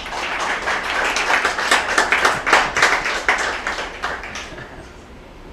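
Audience applauding, many hands clapping, dying away about four and a half seconds in.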